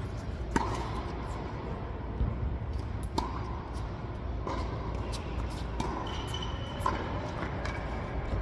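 A doubles rally: a tennis ball being struck by rackets and bouncing on the hard court, a string of sharp pops about a second apart that echo in the indoor hall. A low steady hum runs underneath.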